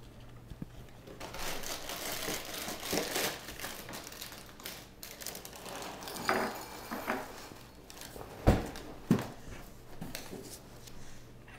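Crinkling and tearing of a cereal box's plastic liner bag, then Cheerios poured into a bowl, followed by two loud thumps about half a second apart.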